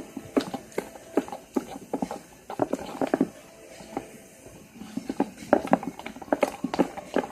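Butter slime being squished and kneaded by hand as water is worked into it, giving a run of irregular sticky clicks and pops that grow busier about five seconds in.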